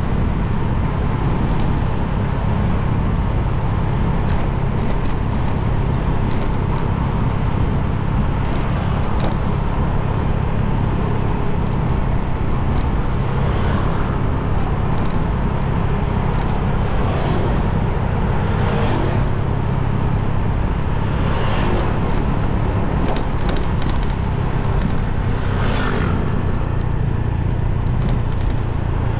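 Motorbike riding along a road: the engine runs steadily under a constant rush of wind and road noise, with a few brief swells, likely other traffic going by.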